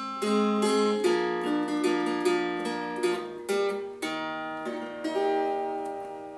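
Acoustic guitar playing the closing notes and chords of a song; the final chord, struck about five seconds in, rings out and fades away.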